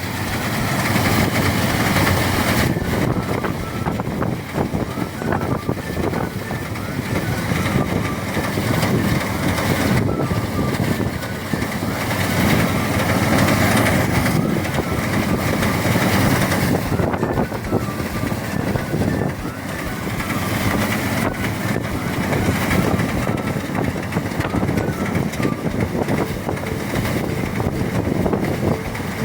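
Motorized rice thresher running steadily, its engine and threshing drum making a dense, unbroken mechanical noise that swells and eases a little as the load changes.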